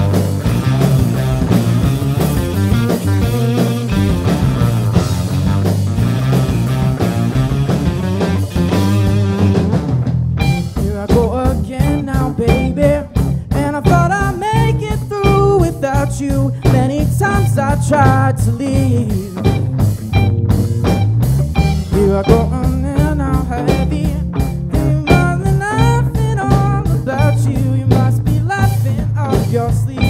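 Live rock band playing an instrumental passage on electric guitars, bass guitar and drums. About ten seconds in, the dense full-band sound thins out and a lead line with sliding, bending notes comes forward over the drums.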